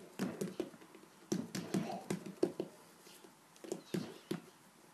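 Hands working play dough on a tiled tabletop: irregular clusters of short taps and clicks as the dough is pressed and handled.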